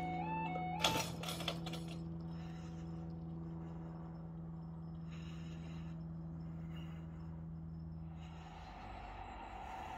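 Level crossing's two-tone yodel alarm cuts off about a second in, with a sharp clattering clunk as the barrier booms come down and seat. A steady low hum follows and dies away near the end, when a low rushing noise rises.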